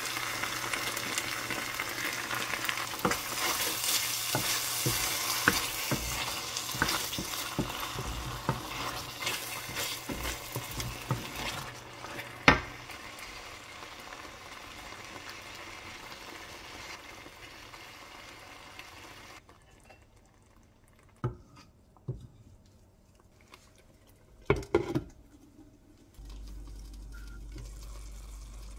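Tomato puree sizzling in a hot oiled enamelled pan while a wooden spatula stirs it, scraping and clicking against the pan, with one sharp knock about twelve seconds in. The sizzling then fades to near quiet, broken by a few spatula knocks, and near the end comes the low steady sound of the sauce simmering.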